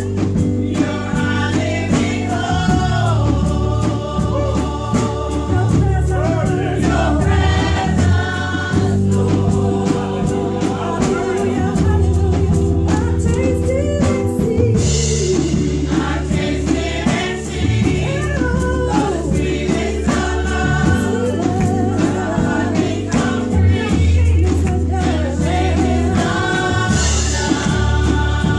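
Live gospel music: a group of women singers in harmony over an instrumental backing with a moving bass line and a steady beat.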